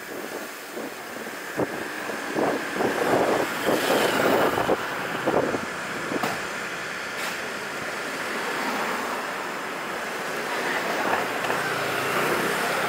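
Wind buffeting the microphone of a camera moving along a street, over steady road and traffic noise. It comes in uneven gusts during the first few seconds, then settles into a steady rush.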